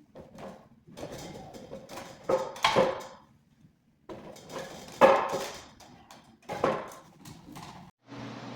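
Metal spiral staircase parts being knocked and fitted together: a series of sharp clanks and knocks with a short metallic ring, the loudest about halfway through.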